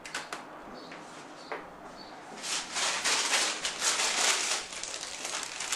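Sheet of baking paper rustling and crinkling as it is pulled out and handled, a dense crackle starting about two and a half seconds in. Before it, a few light knocks of a metal baking tray being set in place.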